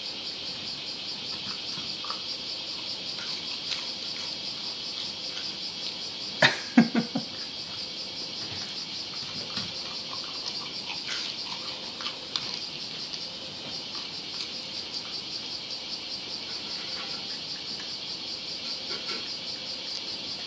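A steady high chirring of insects, with the dog's crunchy chewing and clicks of its teeth on breaded fried chicken tenders scattered through it. A louder burst of crunching comes about six and a half seconds in.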